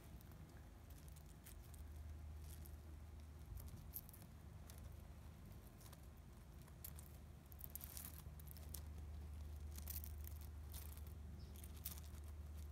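Tortoise plodding across loose gravel: faint, scattered crunches and clicks of small stones shifting under its feet, over a low steady rumble.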